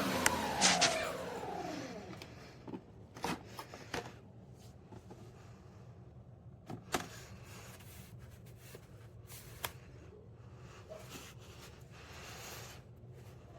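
Bissell Revolution HydroSteam carpet cleaner's motor winding down after being switched off, its whine falling in pitch over the first couple of seconds. This is followed by scattered light clicks and knocks.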